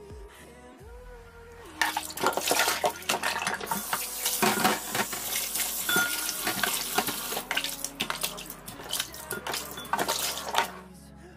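Kitchen tap running and splashing into a plastic basin of raw chicken pieces in a steel sink as the chicken is rinsed by hand. The water starts about two seconds in and stops shortly before the end. Quiet background music plays under it.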